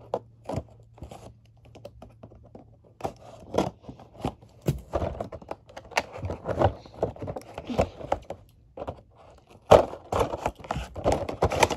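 Cardboard and plastic toy packaging being handled and opened: irregular clicks, scraping, tearing and crinkling, sparse at first and busier from about three seconds in.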